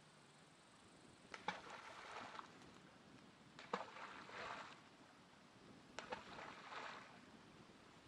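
Three balls of groundbait thrown into a river, each hitting the water with a sharp smack and a short splash, about two seconds apart.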